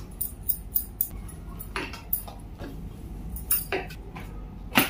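Hands patting and pressing a ball of wheat dough flat on a wooden chopping board: a run of short light clicks and soft knocks, several close together at first, then a few louder ones spaced out.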